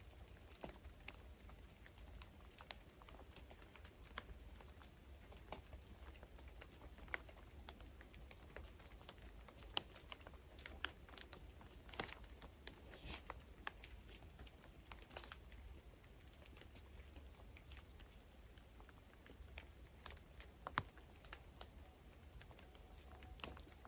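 Near silence: faint ambience with a low rumble and scattered soft irregular clicks and ticks, with no clear birdsong.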